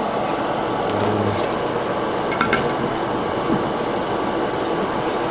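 Steady fan noise, with a few faint light clicks of small parts being handled.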